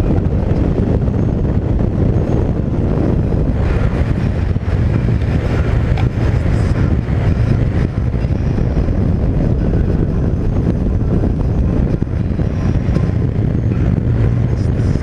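Steady, loud rumble of wind buffeting the microphone over the noise of a vehicle cruising along the road at speed.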